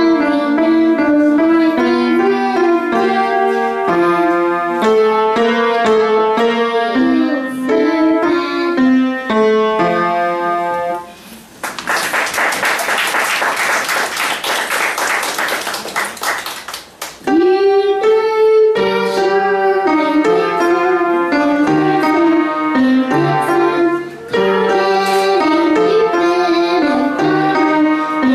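Upright piano played by a child, a simple melody over chords. About eleven seconds in the piece ends and a small audience claps for about five seconds, then the piano playing starts again.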